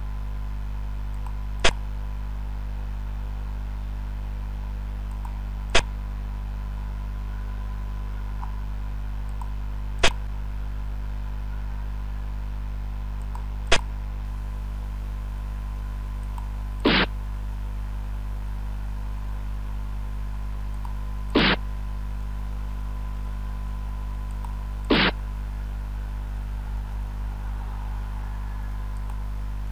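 Xiangqi game software's move sound effects: seven short, sharp clicks spaced about four seconds apart, one as each piece is set down, the last three fuller clacks. A steady low hum runs underneath.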